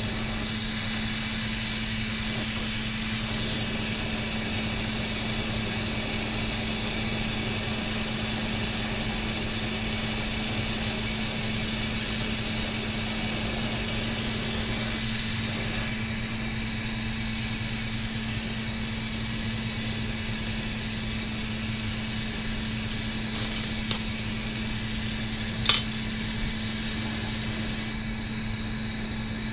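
Glassblowing bench torch hissing steadily over a constant low hum, the hiss easing about halfway through and again near the end as the flame turns yellow. A few sharp glass clinks come in the last third.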